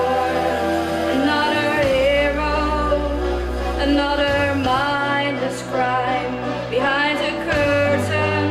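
A girl singing a slow solo melody over instrumental accompaniment, with held low bass notes that change every couple of seconds.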